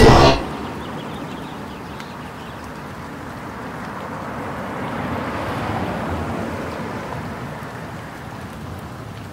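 A loud hit right at the start, then a steady rushing noise like wind that swells gently toward the middle and eases off again.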